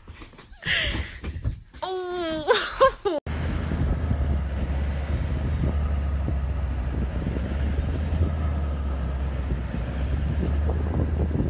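A car driving slowly on a dirt track: a steady low engine and road rumble with wind buffeting the microphone, starting suddenly about three seconds in. Before it come scattered knocks and a short gliding vocal call.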